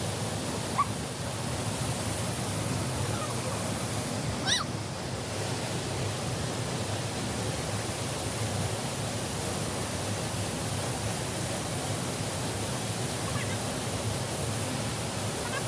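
Steady rush of flowing river water. A brief high chirp comes about four and a half seconds in.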